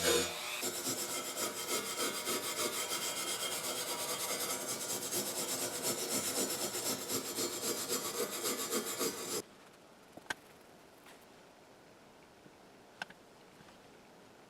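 Hand scrubbing of metal with an abrasive, likely cleaning rust off, in rapid rasping back-and-forth strokes, several a second, that stop suddenly about nine seconds in. Two faint clicks follow.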